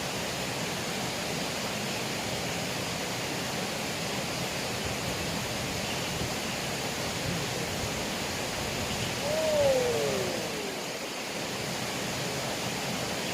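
Steady rush of flowing water from a small river. About two-thirds of the way through, a short falling tone sweeps down once and is briefly the loudest thing heard.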